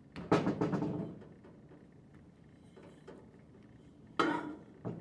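Rotor and shaft assembly of a Viking internal gear pump sliding into the pump casing: metal clicks and scraping in the first second, then a sharp metal clank about four seconds in as the rotor seats against the casing, and a lighter knock just after.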